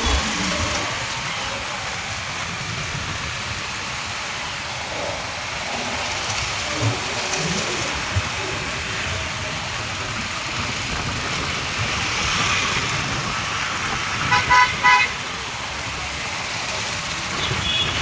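Steady road traffic noise, with a vehicle horn tooting three short times about fourteen seconds in.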